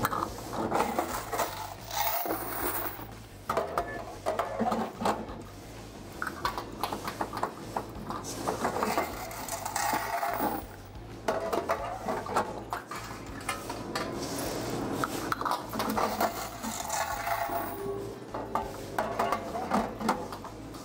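Quarters clinking and rattling as washer coin boxes are emptied into a plastic bucket, with scattered clicks and knocks of the metal coin boxes being pulled out and slid back into the machines.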